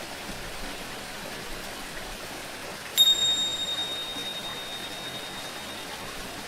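Tingsha cymbals struck once about halfway through, leaving a high, bright ring that fades over about three seconds, over a steady hiss of water.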